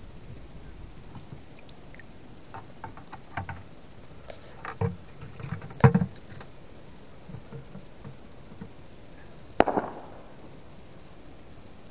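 Shallow stream water splashing and knocking as a fish spear is worked through it at night: scattered small splashes and knocks, a louder cluster about six seconds in, and one sharp, splashy hit near ten seconds.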